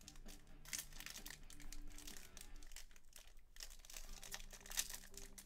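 Foil trading-card pack wrapper crinkling and tearing in the hands as it is worked open, with a stubborn seal that is slow to give.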